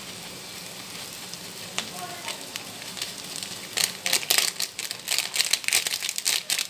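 Mixed vegetables frying in a steel kadai, a steady sizzle that turns into a dense run of loud crackles and rustles about four seconds in.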